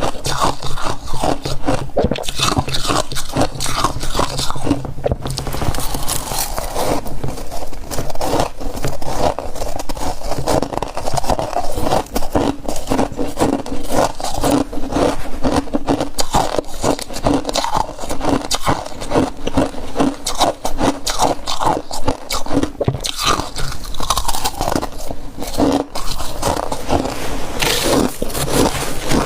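Freezer frost crunching and scraping in a dense, unbroken crackle, loud and close, as handfuls of it are bitten and chewed.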